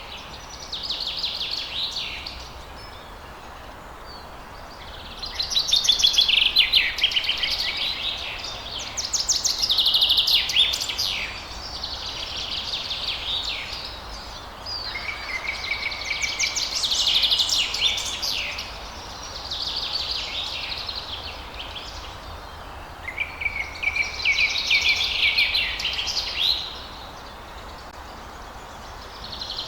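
Songbirds singing: a run of high, rapidly trilled song phrases, each lasting a few seconds with short pauses between, over a faint steady background hiss.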